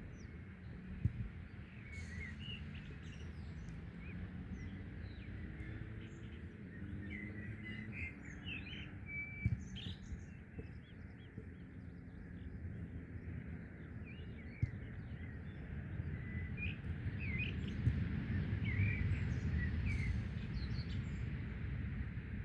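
Birds chirping outdoors, short calls scattered throughout, over a steady low rumble. A few sharp knocks come through at intervals.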